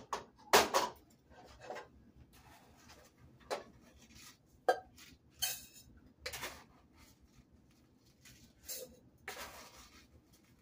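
Dry rice being scooped with a plastic cup out of a stainless steel pot and poured into a cooking pot: irregular clinks and knocks of cup and pots, with short rattles of grains, the loudest about half a second in.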